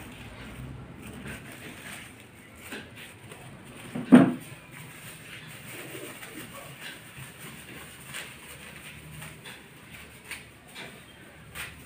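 Thin plastic gloves crinkling and rustling as they are unfolded and pulled on by hand, with one loud, short, low sound about four seconds in.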